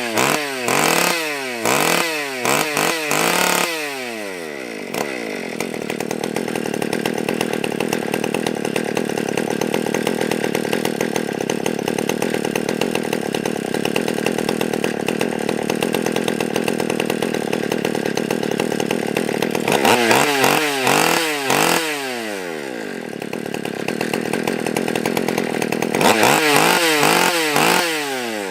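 Stihl 020 AV two-stroke chainsaw engine revved in quick throttle blips, then running steadily for about fifteen seconds, blipped again several times around twenty seconds in and once more near the end. It is being tuned with its low and high mixture screws opened up to richen the fuel mixture, and it keeps running.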